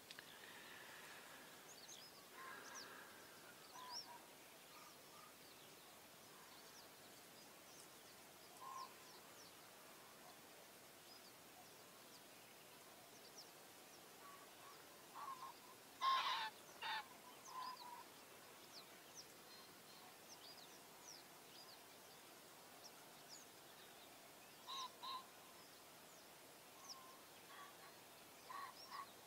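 Quiet grassland ambience: scattered faint bird chirps and calls over a low hiss, with a louder burst of calls about sixteen seconds in and a few short paired calls near the end.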